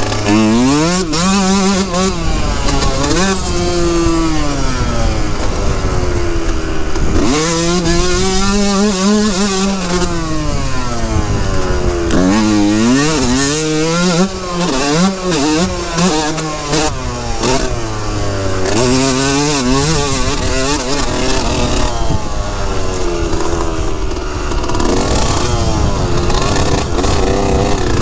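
2003 Yamaha YZ125's single-cylinder two-stroke engine revving up and falling off again and again as the bike is ridden along a dirt trail, its pitch climbing and dropping every couple of seconds.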